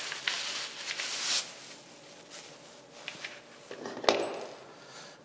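Hard plastic paint racks handled and fitted together on a tabletop: a rustle and scrape in the first second and a half, faint small ticks, then one sharp plastic click about four seconds in as one rack knocks into another.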